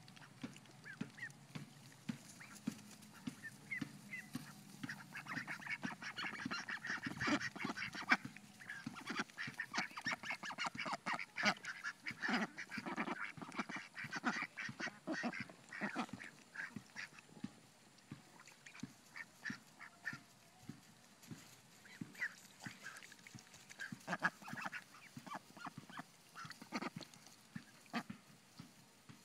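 A flock of young ducks calling: many short quacks overlapping, busiest in the middle stretch and thinning out toward the end.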